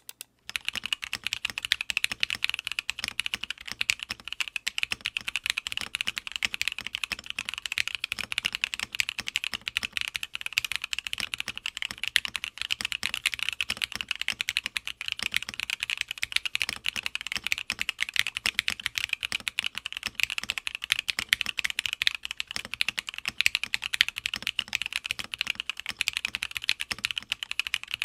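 Continuous fast typing on an Odin Gaming Nova65 gasket-mount 65% mechanical keyboard with Moyu Studio Queen switches on a polycarbonate plate, its stand-offs left out for maximum flex. It is a dense, even stream of keystrokes that starts just after the beginning.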